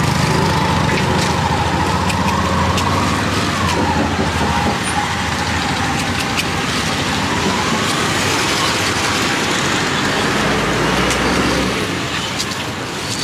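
Road traffic noise: vehicle engines running steadily, with a wavering whine that dips about four seconds in and rises again near eight seconds, and scattered clicks.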